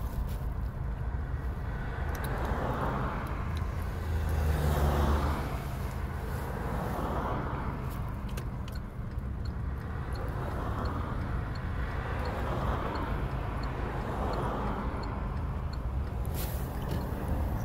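Inside a car cabin: the steady low rumble of the running car, swelling briefly about four to five seconds in. Faint regular ticks come about two-thirds of a second apart through the second half.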